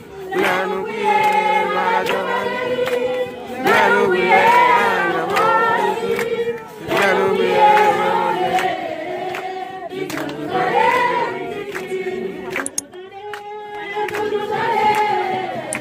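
Congregation singing a praise song together, many voices in sung lines with brief pauses between them.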